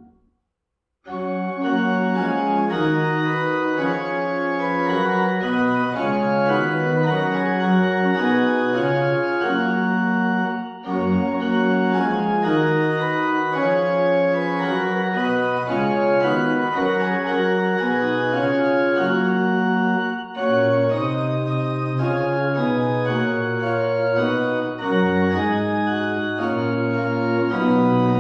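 Organ music: a slow piece of held chords, starting after about a second of silence, with short breaks between phrases about 11 and 20 seconds in.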